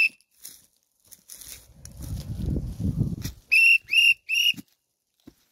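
A small plastic whistle blown as a boar-scaring signal: the tail of a long blast at the very start, then three short sharp blasts in quick succession about three and a half seconds in. Before the blasts there is a low rumbling noise.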